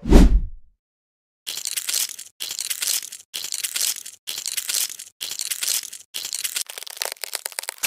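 A whoosh fading right at the start, then about seven crunchy, crackling scraping strokes of under a second each, close together. It is an ASMR sound effect for a knife scraping bees out of honeycomb, and the last stroke breaks into rapid crackles.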